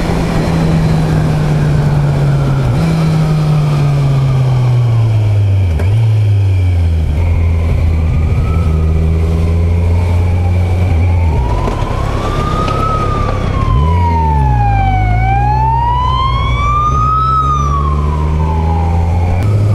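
Motorcycle engine running with wind noise, its pitch stepping as the rider shifts gears. From about halfway, an emergency vehicle's wail siren rises and falls slowly over it, one sweep every few seconds, stopping just before the end.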